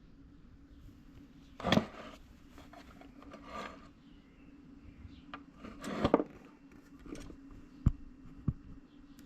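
Tools and small metal parts being handled while the winch control gear is taken apart: two louder clattering bursts about two and six seconds in, some rubbing, and a few sharp knocks near the end, over a faint steady hum.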